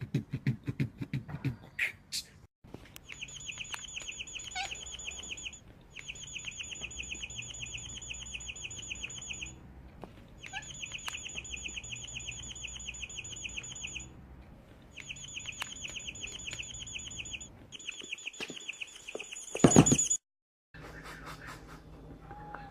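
A bird's rapid chattering trill, repeated in four bouts of three to four seconds each with short pauses between them. Beatbox-style rhythmic sounds are heard at the start, and a short loud crackle comes near the end.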